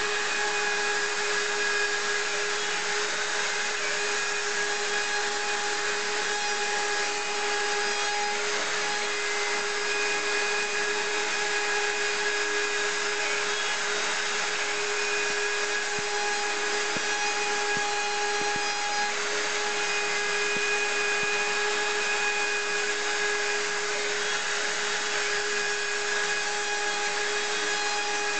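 DABEN CNC 50/70 router's spindle running with a steady whine while its cutter mills a relief into a wooden board, the noise of the bit cutting the wood under it.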